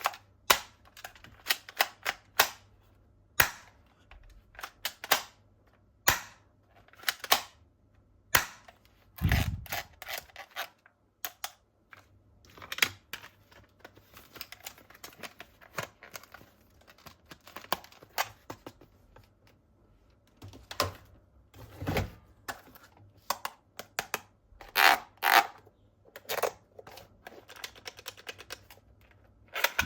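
Irregular sharp clicks and knocks of toy guns and their plastic parts being handled, with a couple of duller thumps.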